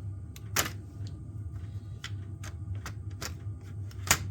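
Scattered sharp clicks and knocks of hard plastic and metal laptop parts being handled as a stuck hard drive is worked loose from a laptop's drive bay, the loudest a little past half a second in and near the end, over a steady low hum.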